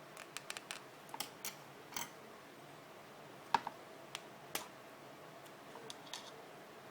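Irregular small, sharp clicks and taps of a Braun electric toothbrush and its parts being handled. They come in loose clusters, the loudest about halfway through.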